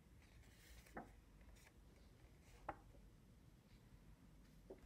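Faint handling of a paper sheet: soft rustles and three light taps, about a second in, near three seconds and near the end, over low room hum.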